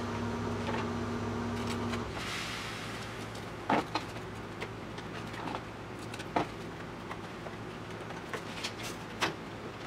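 A steady hum cuts off about two seconds in; then a few short scrapes and taps of a cardboard template being handled and pressed against the steel flange of a car's rear wheel arch.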